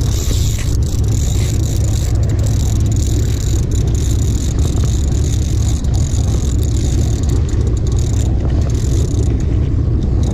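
Sportfishing boat's engines running steadily, a deep drone under a hiss of wind and water.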